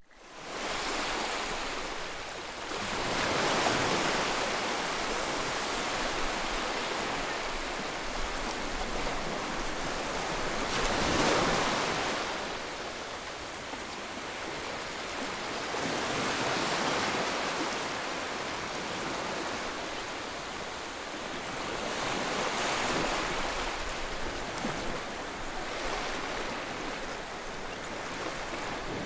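Ocean waves breaking and washing in, a steady rush that swells and eases about every six to seven seconds, fading in at the start.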